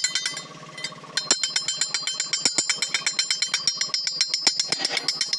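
Rapid metal-on-metal striking with a ringing tone, several strikes a second, with a short break about half a second in before it resumes.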